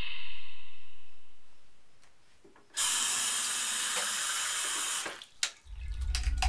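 Bathroom sink faucet running, a steady water hiss that starts abruptly about three seconds in and stops about two seconds later, followed by a few sharp clicks. Before it, another sound dies away over the first two seconds, and a low rumble rises near the end.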